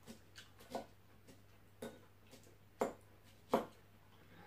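Close-up eating sounds: about six short, sharp clicks and crunches spaced irregularly, the loudest near the end, as a fork picks lettuce salad from a ceramic bowl and it is chewed.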